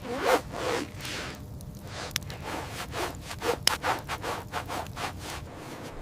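Irregular rubbing and scraping strokes with several sharp knocks, as of shelter materials such as wood being handled and worked by hand.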